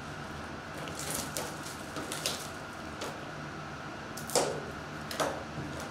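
Shrink-wrapped cardboard trading-card boxes being handled and set down against each other: scattered light taps and plastic rustles, the loudest about four seconds in, over a steady low hum.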